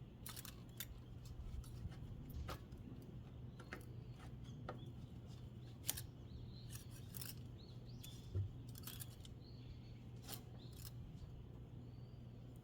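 Light scattered clicks and taps, about a dozen at irregular intervals with a sharper one about six seconds in, over a steady low hum.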